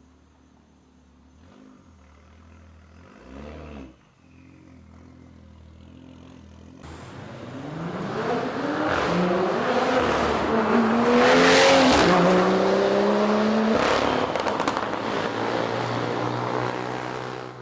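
BMW M2 F87's turbocharged straight-six through an aftermarket exhaust, at first a low quiet rumble with one short blip about three and a half seconds in. About seven seconds in it accelerates hard and loud, its pitch climbing, dropping back at a gear change, and climbing again, before cutting off at the end.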